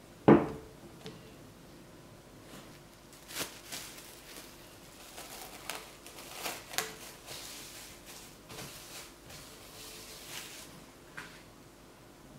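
A ball of bread dough dropped into a glass bowl with one heavy thud, then plastic cling film crinkling and rustling as it is stretched and pressed over the bowl's rim.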